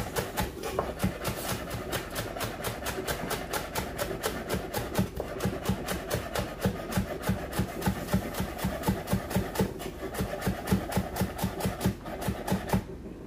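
Chef's knife chopping spring onion on a bamboo cutting board: a steady run of quick knocks of the blade on the wood, roughly four a second, stopping near the end.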